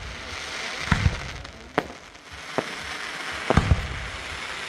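Aerial fireworks bursting: about five sharp bangs, roughly one a second, over a steady crackle.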